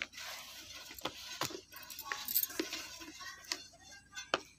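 A handful of light, sharp clicks and small metallic clinks, scattered a second or so apart, over a faint hiss.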